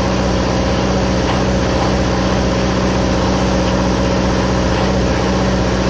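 Onan diesel generator's engine running steadily, just started and still warming up.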